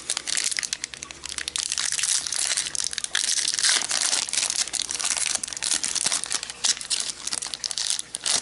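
Foil trading-card booster pack wrapper crinkling and tearing as it is pulled open by hand, a dense run of crackles and sharp clicks.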